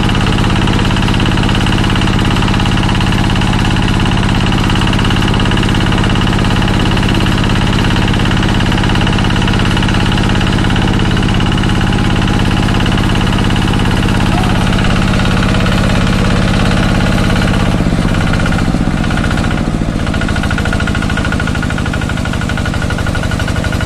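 Single-cylinder Kubota diesel engine running steadily with a knocking beat, driving an irrigation water pump. Near the end the engine note changes as the pump primes and begins spitting water and air from its outlet.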